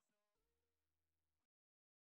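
Near silence: the faint last tail of the outro music fading out, cutting to total silence about one and a half seconds in.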